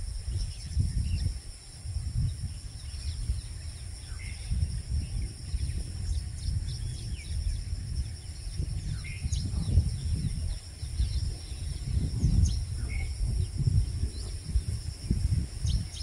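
Outdoor ambience: a steady high insect drone, with scattered short bird chirps, over a low uneven rumble that is the loudest sound throughout.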